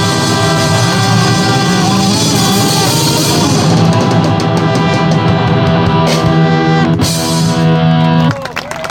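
Live rock band playing loud, with the drum kit prominent under sustained chords; the music stops abruptly near the end, as at the close of a song.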